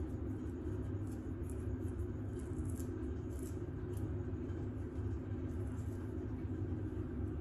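Long press-on nails scratching and scraping the scalp through the hair in faint, irregular crackly rasps, over a steady low hum.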